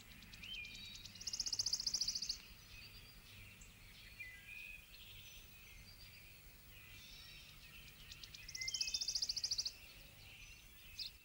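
Birds singing: a high, fast trill comes twice, about seven seconds apart, with short chirps and gliding whistled notes in between.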